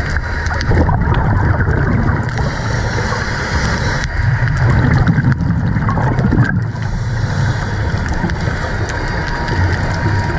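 Muffled underwater noise recorded through a camera's waterproof housing, with the gurgle of scuba regulator exhaust bubbles coming and going in long breaths.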